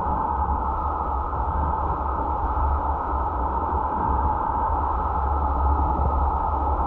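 Steady wind and road noise of a moving car: a low rumble under an even hiss.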